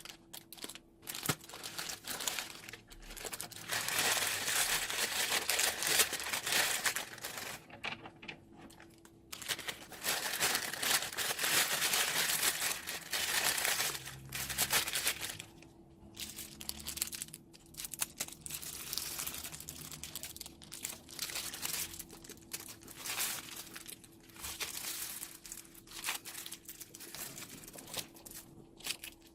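Slime squeezed out of a plastic piping bag: dense crackling, crinkling and squishing, in two long stretches a few seconds in and near the middle, then in shorter uneven bursts. A faint steady hum runs underneath.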